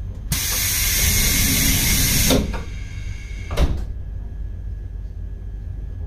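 Compressed air hissing out of a train's pneumatic system for about two seconds, cutting off abruptly, then a shorter sharp puff about a second later, over the low rumble of the train.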